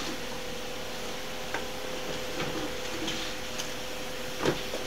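Rummaging through a shelf of tools and supplies: a few faint knocks and clicks of things being moved, with a sharper knock near the end, over a steady hum.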